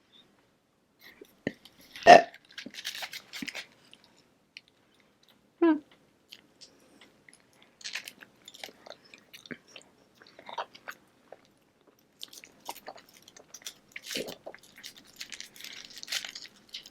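Close-miked chewing and biting of a burrito: wet, sticky mouth sounds with scattered small clicks, one louder bite about two seconds in, and a brief hum-like sound from the throat a few seconds later.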